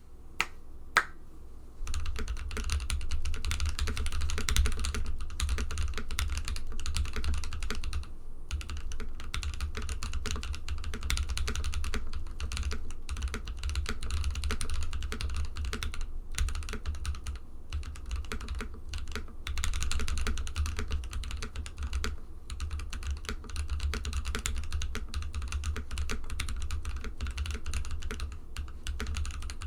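Typing sound test on a TKC Portico mechanical keyboard with an FR4 plate and Gazzew Boba U4T tactile switches, lubed with Tribosys 3204 and filmed. Two single key clicks come first, then steady fast typing with a few short pauses. The switches have a deep, rich sound.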